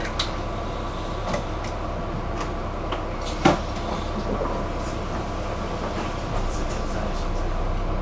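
Steady rumble of a bus heard from inside the cabin, with scattered rattling clicks and one sharp knock about three and a half seconds in.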